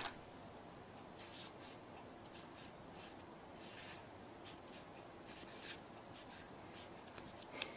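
Hand-writing on paper: short, irregular scratchy strokes of a pen or pencil tip, coming in small clusters, with a sharper stroke near the end.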